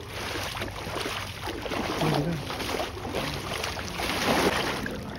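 Footsteps wading through shallow seawater, the water sloshing in uneven swishes.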